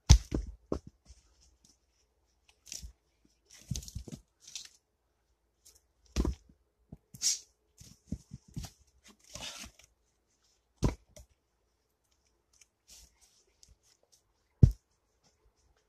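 Sharp wooden knocks of split birch firewood being dropped and thrown onto a pile, four of them loud, among crunching and rustling of steps through dry leaves and brush.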